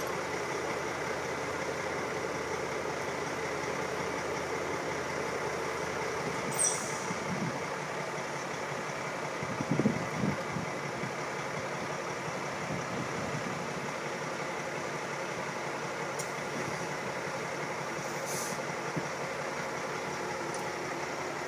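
Loaded log truck's diesel engine running steadily as the truck maneuvers slowly, swelling briefly about ten seconds in, with a couple of short air-brake hisses.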